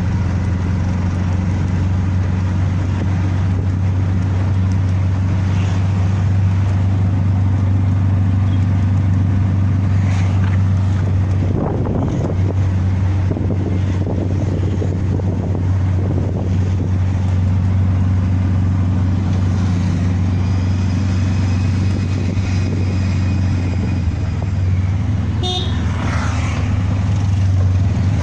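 Steady drone of a motor vehicle's engine running without a break, with a faint, long horn note about three-quarters of the way through.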